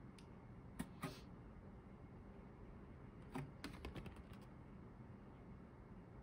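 Light clicks and taps of a stiff printed card being handled and flipped over between the fingers: two clicks about a second in, then a quick run of small clicks near the middle, over near silence.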